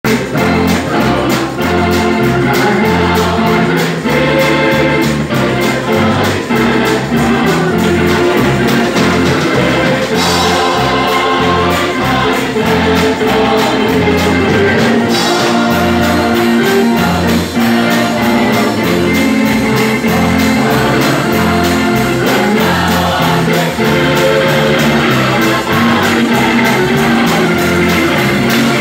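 Live gospel song: an electric organ carries sustained chords and a steady repeating bass line, with a drum kit keeping time, a woman singing into a microphone, and the congregation singing along.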